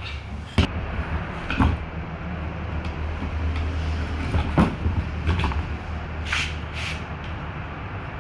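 Metal parts being handled and fitted: several sharp knocks and clicks, with two short scraping sounds near the end, over a steady low hum.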